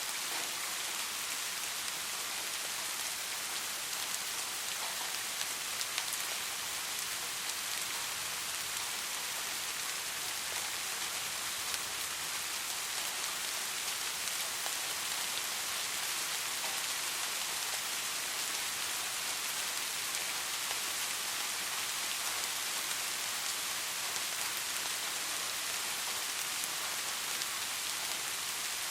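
Soft steady rain, a constant hiss of many small drops with faint scattered individual drop ticks.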